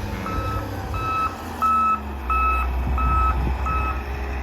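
A heavy vehicle's reversing alarm beeping steadily at about one and a half beeps a second, over the low rumble of its engine. The beeps stop shortly before the end.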